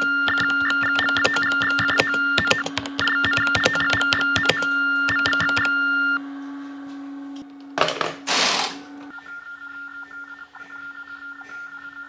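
Ultratec Minicom text telephone sending its Baudot modem tones through the acoustic coupler as it is typed on: rapid beeps switching between two pitches, mixed with key clicks, over a steady low hum. The typing stops about six seconds in; a short burst of noise follows about two seconds later, then a fainter pulsing beep.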